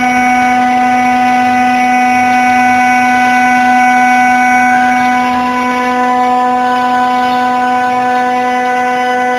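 The 2.2 kW water-cooled spindle of a CNC router milling a metal plate makes a steady, loud whine with several overtones.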